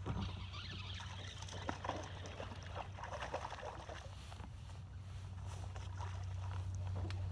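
Water sloshing and splashing around a small fishing boat, with scattered light knocks, busiest in the first few seconds, over a steady low hum.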